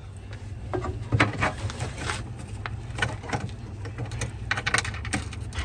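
Irregular clicks, knocks and rattles of a replacement freezer defrost timer and its parts being handled and mounted, with a denser run of rattling near the end, over a steady low hum.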